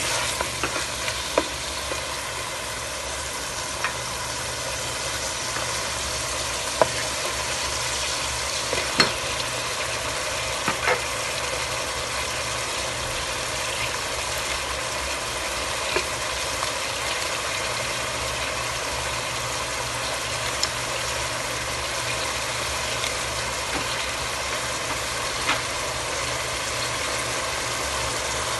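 Chopped chicken with onion and garlic frying in butter in a pot: a steady sizzle with a dozen or so sharp clicks and pops scattered through it, over a low steady hum.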